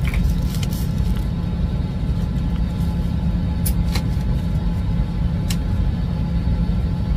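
Steady low rumble and hiss of an airliner's cabin before pushback, with a faint steady hum in it and a few light clicks.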